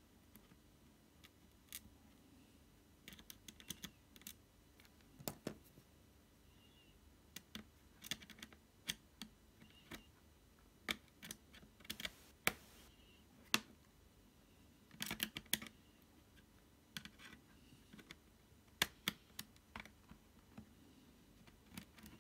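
Irregular small clicks and taps from a small screwdriver and fingers handling the screws and plastic case of a Packard Bell Dot S netbook, with a few louder clusters of clicks.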